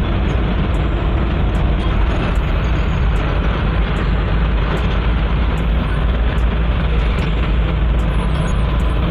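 Eicher Pro 2095 CNG truck running in slow traffic, heard from inside the cab: a loud, steady engine and road noise with a strong low end.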